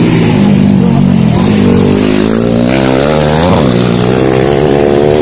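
Motocross dirt bike engine revving hard, its pitch climbing to a sharp peak about three and a half seconds in and then dropping away.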